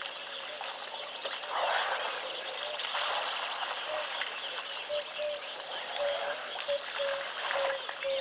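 Wild birds chirping and calling, with a series of short low notes repeating steadily from about four seconds in.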